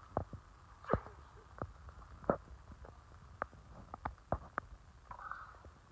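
Irregular light clicks and knocks of small hardware being handled by hand: a bolt and a steel mounting bracket being fitted together on a backboard frame, about a dozen sharp taps in all.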